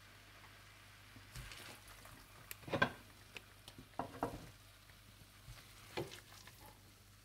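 A spoon scraping potato and fenugreek curry out of a wok and serving it into a bowl: a few short scrapes and knocks, the loudest about three seconds in, with two more near four seconds and one near six seconds, over a faint steady hiss.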